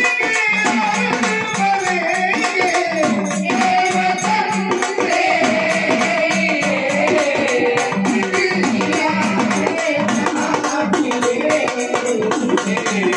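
Marathi folk music: a wavering melodic line, likely the singer's voice, over fast, steady strokes on a dimdi frame drum with jingling rattle percussion.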